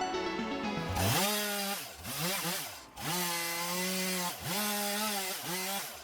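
Background music for about the first second, then a small Stihl MS170 chainsaw runs at high revs in several throttle bursts. Its pitch rises and falls, with brief drops about two, three and four and a half seconds in.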